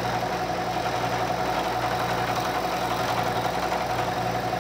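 Manual vertical knee mill running, its end mill cutting a side flat on a rotary valve rotor's stop arm drive dog. The sound is a steady machine hum with a constant mid-pitched whine over it.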